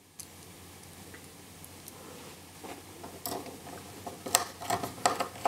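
Small precision screwdriver turning screws into the plastic case of an IKEA Vindriktning air quality sensor to hold a replacement circuit board. Quiet at first, then a string of small sharp clicks and ticks in the last two seconds or so.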